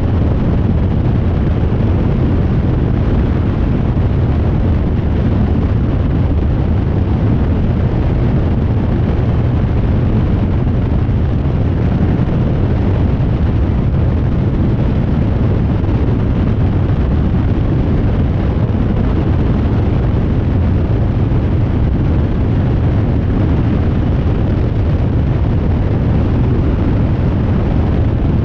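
Rans Coyote ultralight's engine and propeller running steadily in cruise, a constant loud drone mixed with rushing airflow past the under-wing microphone.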